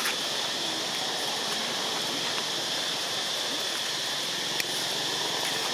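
Steady outdoor background noise: a continuous, even hiss with a few faint clicks.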